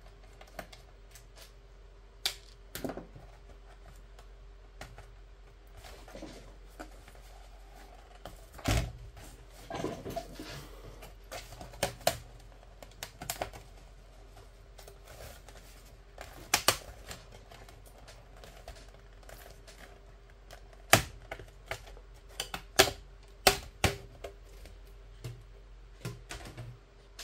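Plastic snap clips of an HP 15-da laptop's bottom cover popping loose as the cover is pried off: an irregular string of sharp clicks and snaps, with a cluster of louder snaps near the end.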